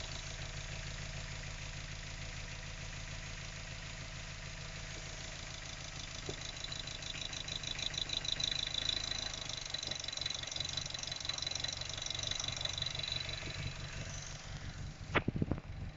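Mazda MX-5 Mk3's four-cylinder engine idling roughly, with a fast, uneven beat. A few sharp knocks come near the end.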